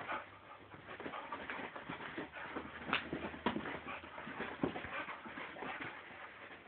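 Small dog spinning after its tail on carpet: a quick, irregular patter and scuffle of paws, with two sharper clicks about three seconds in.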